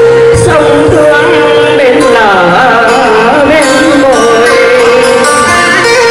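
A woman singing a slow Vietnamese song through a microphone over instrumental accompaniment, her voice sliding and wavering in pitch through ornamented phrases.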